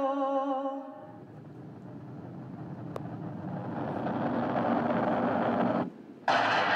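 A woman's long sung note with vibrato ends about a second in. A steady rushing noise then swells for about five seconds and cuts off suddenly.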